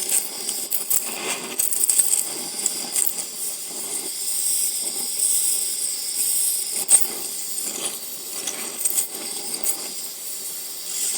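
Oxygen-propane torch flame hissing steadily while it heats the cast iron cylinder head around a rusted bolt red hot, with scattered sharp clicks and crackles and one louder click about seven seconds in.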